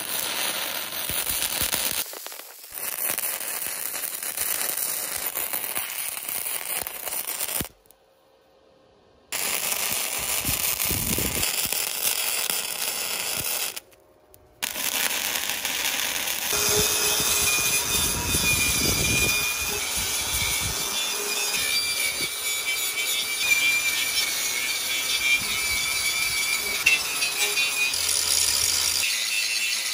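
Wire-feed (MIG) welding arc crackling in two runs, each cut off abruptly, then from a little past halfway an angle grinder running against steel with a steady high whine.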